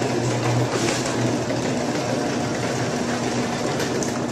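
Craftsman half-horsepower garage door opener running: its motor and drive make a steady, loud mechanical hum.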